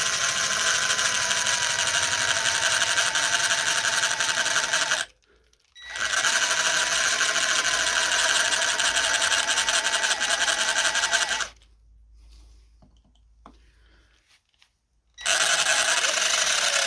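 Electric drill with a larger bit drilling off the head of a seized, rounded Allen bolt, run in three stretches: it stops about five seconds in, starts again a second later, stops for a few seconds past the middle, and starts again near the end. Its motor whine sags slightly in pitch as the bit bites.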